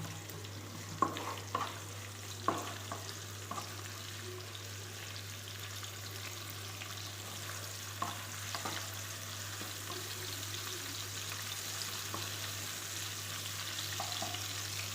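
Sliced onions sautéing in hot Dalda with whole spices: a steady sizzle, with a spoon stirring and knocking against the pan a few times near the start and again about halfway through.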